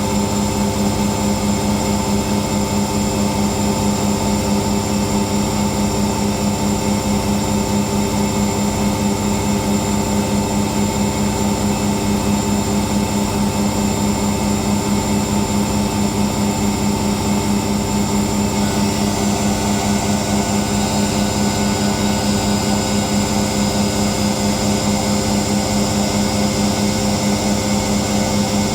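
Whirlpool Indiana 1400 front-loading washing machine in its high-speed spin, running steadily with a loud, even whine of several held tones over a rushing hum.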